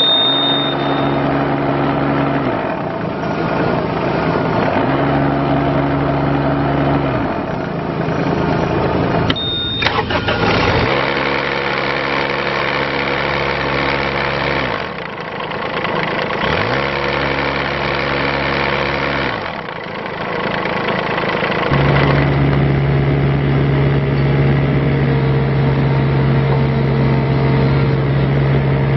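Bobcat 324 mini excavator's diesel engine running, its note shifting in repeated spells of a few seconds as the machine is worked. A short high beep with a few clicks comes about ten seconds in. The engine settles into a steadier, stronger note for the last seven seconds or so.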